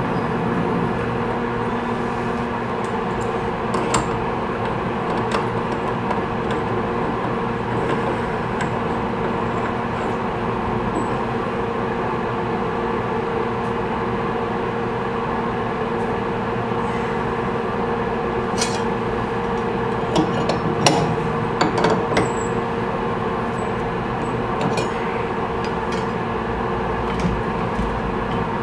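A machine tool running steadily with a constant hum, with a few sharp metallic clicks, most of them in a cluster about two-thirds of the way through.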